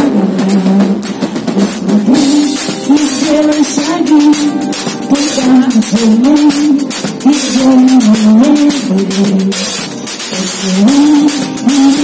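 Live pop-rock band playing a song: a drum kit keeps a steady beat under a repeating melody that steps up and down.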